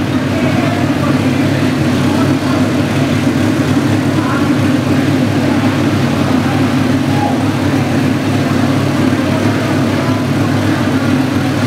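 Dirt track race car's carbureted engine running steadily at a constant speed, an even rumble with no revving.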